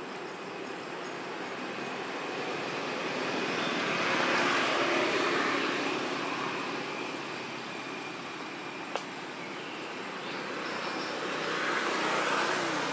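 Rushing noise of passing motor traffic that swells and fades twice, peaking about four seconds in and again near the end, with one sharp click about nine seconds in.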